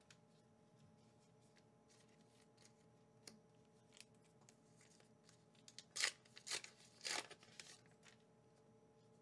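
A small plastic McDonald's Pokémon promo card pack being opened and its cards handled. Faint light clicks and rustles, then three short crinkly bursts a little past the middle.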